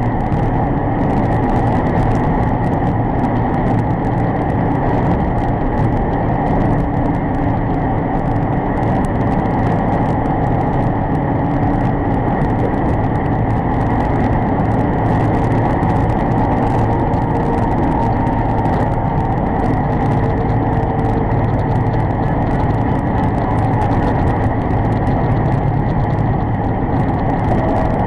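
Steady engine and road noise inside a truck cab cruising at highway speed, an even rumble with no sudden events.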